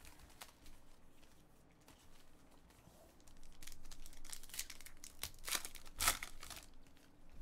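Foil wrapper of an Elite Extra Edition baseball card pack being handled, then crinkled and torn open by hand. The tearing and crinkling grows loud in the last few seconds and peaks about six seconds in.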